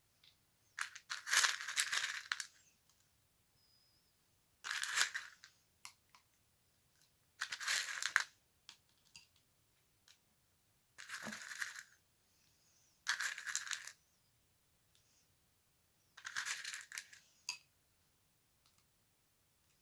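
Slime being squeezed and pressed by hand, in six short noisy squishes about a second long, roughly every three seconds.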